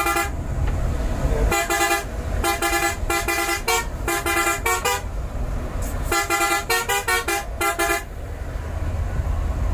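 Vehicle horn, most likely a bus air horn, honking in quick bursts of short repeated toots that stop about eight seconds in. Underneath is the low rumble of a moving bus.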